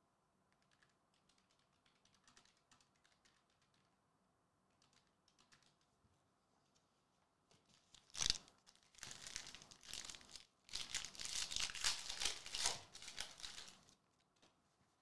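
Faint flicks of trading cards being handled, then about eight seconds in a foil trading-card pack is torn open with one sharp rip, followed by about five seconds of wrapper crinkling as it is peeled off the cards.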